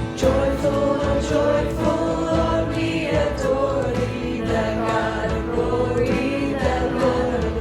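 A choir singing with instrumental backing, the voices coming in just after the start.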